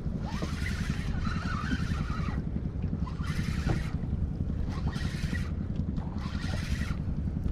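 Wind buffeting the microphone with a steady low rumble, while water splashes against the hull of a small fishing boat in hissing bursts about once every second or so.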